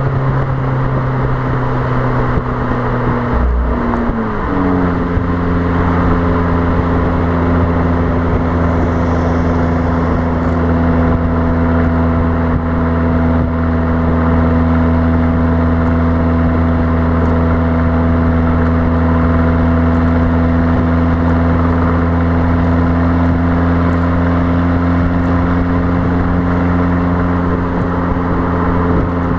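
Fiat Abarth 595's 1.4-litre turbocharged four-cylinder engine and exhaust, droning steadily at motorway cruise, with wind noise on the microphone. About three and a half seconds in, the note breaks off briefly and comes back lower in pitch, then holds steady.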